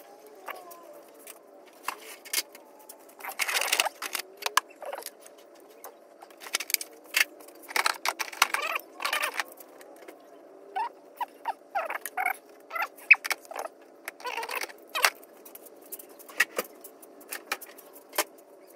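Ratchet wrench clicking in short runs and metal tools clinking while intake manifold bolts are loosened and taken out, over a faint steady hum.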